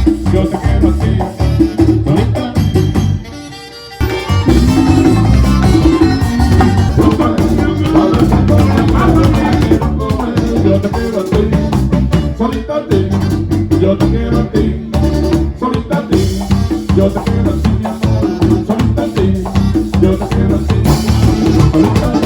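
Latin tropical band music with drum kit and percussion at a steady dance beat, breaking off briefly about three seconds in before the full band comes back.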